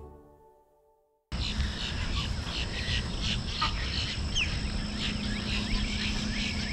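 Background music fading out, then after a moment of silence outdoor wildlife sound cuts in: a steady high insect drone with many short bird chirps and calls over it.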